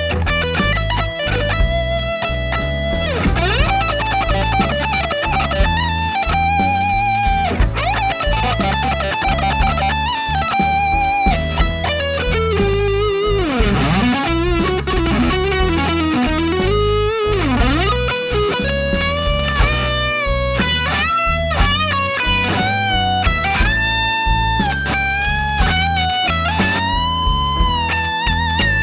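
Distorted electric guitar lead through the NUX Amp Academy's 'Uber' high-gain amp model, recorded direct, playing single-note blues lines with wide string bends and vibrato, over a blues backing track of drums and bass.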